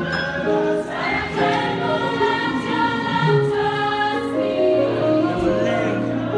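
Music with several voices singing together in harmony over sustained low notes.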